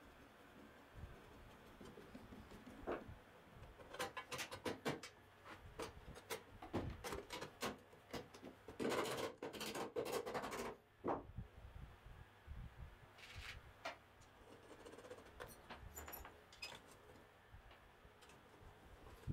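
Steel belt-grinder parts being handled and fitted together by gloved hands: scattered small metal clicks and knocks, with a busier continuous stretch of rubbing and clatter about nine to ten seconds in.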